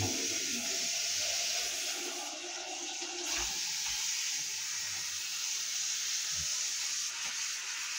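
Bathroom basin tap running steadily, water splashing into a small bin being rinsed in the basin, with a couple of faint knocks as the bin is handled.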